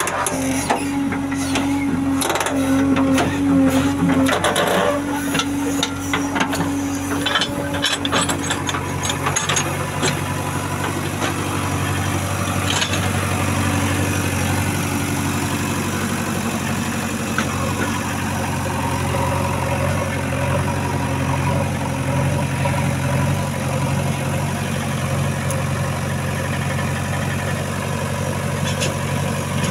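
JCB 3DX backhoe loader's diesel engine running, with clattering and a steady whine over the first several seconds, then running steadily.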